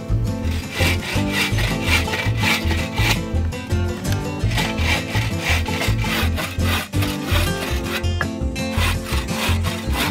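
Bow saw cutting through a log on a wooden sawbuck, in repeated back-and-forth strokes, over background music.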